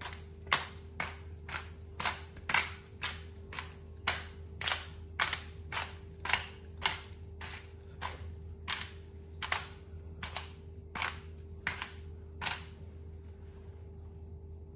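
Hand-twisted pepper mill grinding black peppercorns: a crunching click with each twist, about two or three a second, stopping about twelve seconds in. A steady low hum runs underneath.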